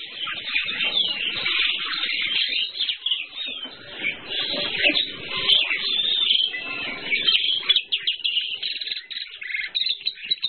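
Asian pied starlings singing and chattering to each other: a dense, varied run of whistles and harsh notes, turning into a fast rattle of short clicking notes near the end.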